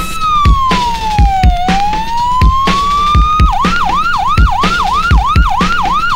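A siren wail over a music track with a steady kick-drum beat. The tone slides slowly down and back up, then about three and a half seconds in switches to a fast yelp of about three whoops a second.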